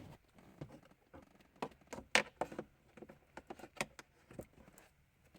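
Irregular light clicks, taps and knocks of hands handling things, the loudest about two seconds in.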